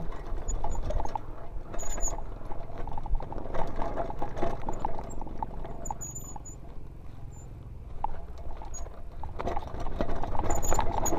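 Mountain bike rolling down a dry dirt single track: tyres crunching over dirt and small stones, and the bike rattling over the bumps, with a few brief high squeaks.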